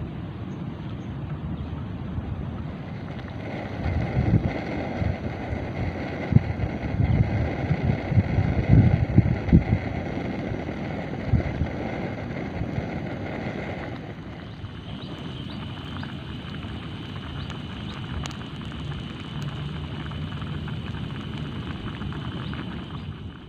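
Wind buffeting the microphone in gusts over a steady hiss, heaviest in the first half. About 14 seconds in the gusts ease and a faint, steady high tone comes in.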